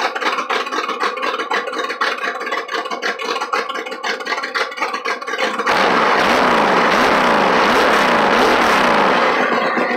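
Engine of a GMC compact pickup revved hard for about four seconds from a little past halfway, its pitch swinging up and down about twice a second, then dropping back near the end.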